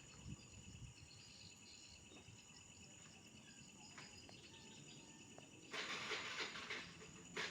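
Faint, steady chirping of night insects such as crickets, with evenly pulsing high tones. Over the last two seconds a louder scratchy rustling noise comes in.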